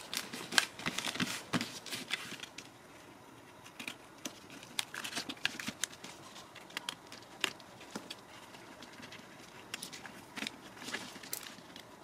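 Adhesive contact sheet being smoothed onto a wall by hand and trimmed with a craft knife: scattered soft crinkles, rubbing and small ticks that come in short clusters.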